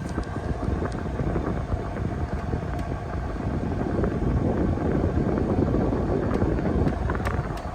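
Air conditioner running, a loud steady rumble of fan and compressor with a few faint ticks. It eases off near the end.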